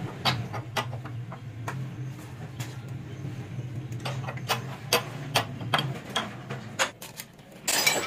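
Irregular sharp metallic clicks and knocks from hand tools and a gear puller on the crankshaft gear, over a steady low hum that fades out a few seconds in. A louder clatter of metal comes near the end.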